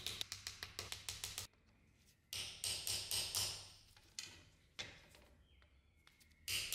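Small hammer tapping brass rivets on an anvil, peening them over a wooden sword grip. Quick light taps come in runs of several a second, with a pause about one and a half seconds in, a few single taps after about four seconds, and fast tapping again at the very end.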